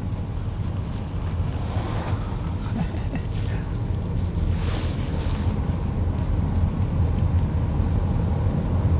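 Car driving slowly, heard from inside: a steady low engine and tyre rumble, with a brief rush of noise about four and a half seconds in.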